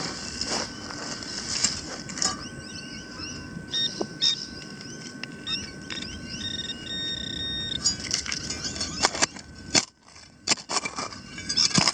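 Hand digger cutting and scraping into soil, with irregular crunches and knocks at the start and again over the last few seconds. In the quieter middle, short high beeping tones switch on and off.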